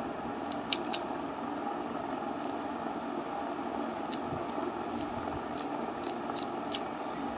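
Plastic Rubik's cube layers clicking as they are turned, about ten short sharp clicks at uneven intervals over a steady background hum.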